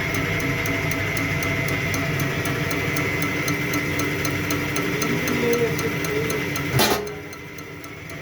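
Bosch common-rail diesel injector being fired on a test bench: even, rapid ticking over the steady whine of the bench's pump. Near the end a short sharp burst, after which the running noise drops off for a moment.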